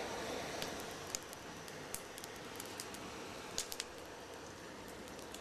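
Faint hiss of a hand-held gas torch dying away in the first half-second, then scattered sharp crackles and pops of matches burning.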